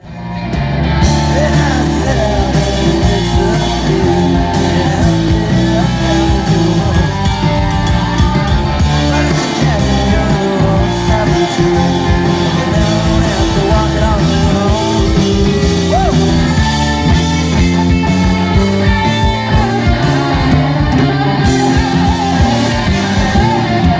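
Live rock band playing: electric guitars, drums and a singer, recorded from the audience. The sound fades in over the first second.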